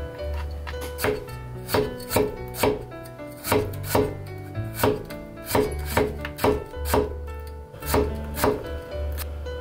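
Chinese cleaver slicing bitter melon thinly on a wooden cutting board, with a crisp knock on the board at each slice, about two a second, over background music.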